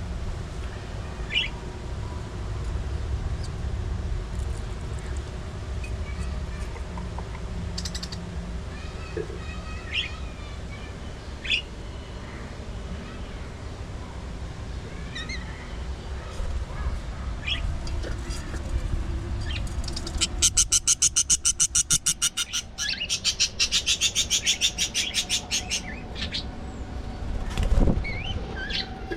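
Budgerigars chirping now and then over a steady low rumble. About twenty seconds in comes a loud, fast pulsing chatter that lasts several seconds.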